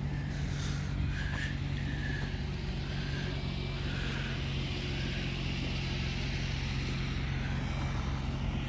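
An engine running steadily at an even, low hum.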